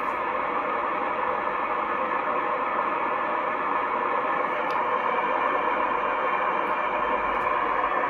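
Shortwave receiver audio on the 40-metre amateur band: steady band noise and hiss confined to the narrow audio passband of a single-sideband receiver, with a few faint steady tones in it.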